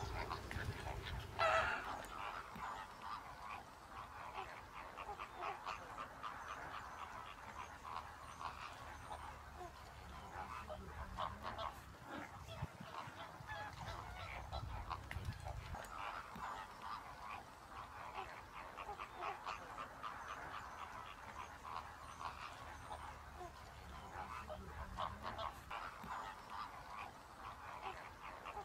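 A flock of greater flamingos calling: a continuous goose-like honking and gabbling of many short calls, with one louder honk about a second and a half in.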